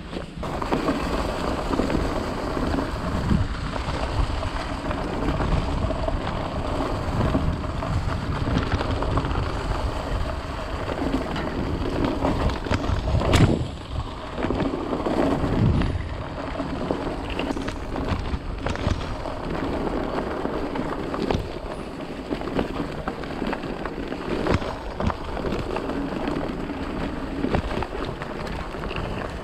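Mountain bike ridden down a leaf-covered dirt trail: tyres rolling over dry leaves and ground, the bike rattling over bumps, and wind buffeting the microphone as a steady rumble. A sharp knock about thirteen seconds in is the loudest moment.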